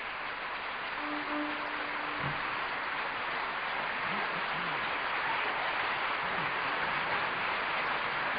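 Theatre audience applauding, growing steadily louder, with a few voices shouting from the house.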